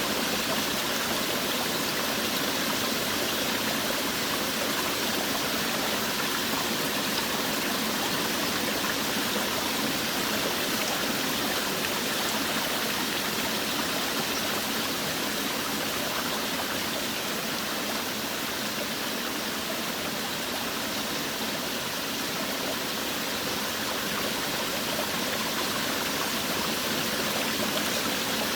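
Forest waterfall: water falling and rushing steadily with an even hiss, without a break.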